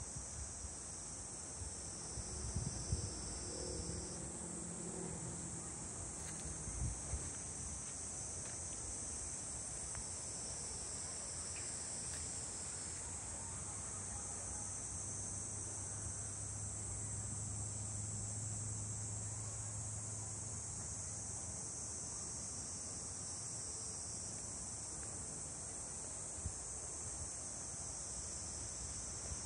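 Steady high-pitched drone of an insect chorus. A faint low hum rises and fades in the middle.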